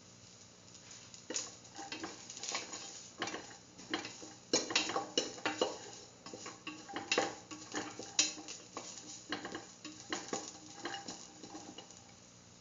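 A spoon scraping and clinking irregularly against a steel pan as sliced onion, garlic and shallots are stirred while sautéing in oil, with a light sizzle. The stirring starts about a second in, is busiest in the middle and stops shortly before the end.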